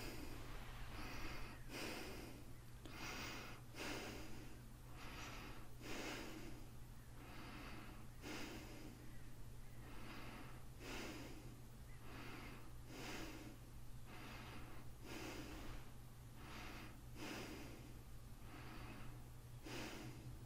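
A person breathing in and out in a steady rhythm, one breath sound about every second, over a low steady hum.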